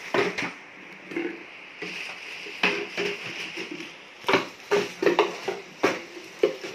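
Plastic jars with slotted lids knocking against each other and a plastic bag rustling as the jars are dropped into it, in a series of irregular clacks.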